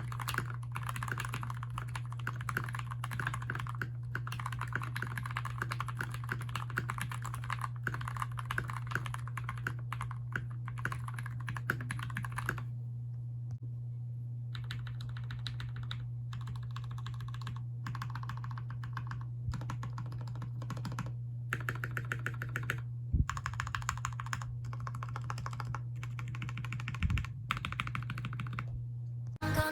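Typing on a Keychron K6 mechanical keyboard with switches lubed with Krytox 205g0: a fast, continuous clatter of keystrokes for about the first twelve seconds, then typing in short runs with brief pauses. A steady low hum runs underneath.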